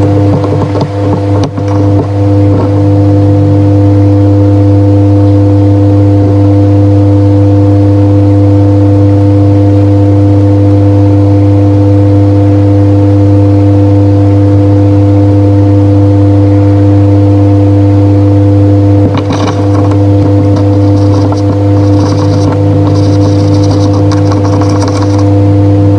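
Loud, steady electrical-sounding hum at several fixed pitches, unchanging throughout. From about nineteen seconds in it is joined by scratchy rustling and short bursts of high hiss.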